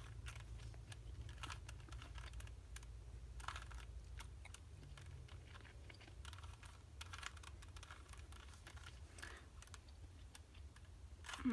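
Plastic Rubik's Cube layers being twisted by hand, giving faint, irregular clicking and clacking.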